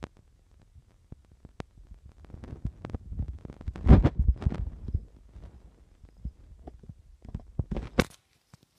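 Soft thumps, knocks and scuffling of a cat scrambling after a laser dot on a hardwood floor, in a loud cluster about four seconds in and a few sharper knocks near the end, after which the sound cuts out.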